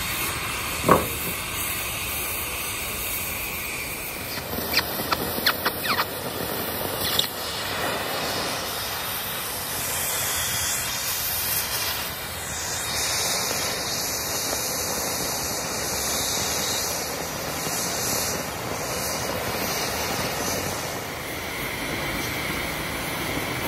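Oxy-fuel cutting torch with a circle-cutting attachment hissing steadily as its flame burns through thick steel plate. A sharp crack comes about a second in, and a quick cluster of snaps follows around five to seven seconds in.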